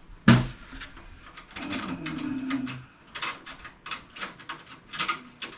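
Parts of a desktop PC case being handled during dismantling: a loud knock about a quarter of a second in, then a quick run of clicks and rattles of metal and plastic pieces through the second half.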